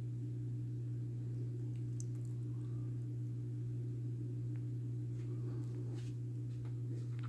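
Litex Crown 42-inch ceiling fan running, its motor giving a steady low hum, with a few faint clicks.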